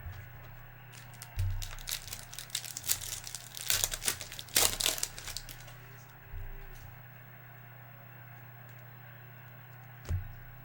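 Foil trading-card pack wrapper crinkling and crackling as it is handled and torn open, a busy stretch of crackle from about a second and a half in to about five seconds, then a few more near the middle before it goes quiet over a steady low hum.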